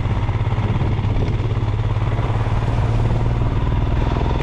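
Motorcycle engine running steadily under way, a low even engine note with a haze of wind and road noise over it.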